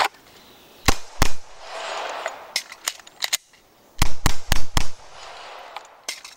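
Glock pistol shots: a pair about a second in, a few fainter pops, then a quick string of four shots roughly a third of a second apart about four seconds in.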